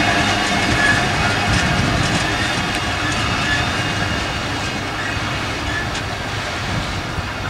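Container freight wagons of a Pacific National intermodal train rolling by on the rails: steady wheel rumble with clacking over the rail joints and a few brief faint wheel squeals. The sound slowly fades as the tail of the train moves away.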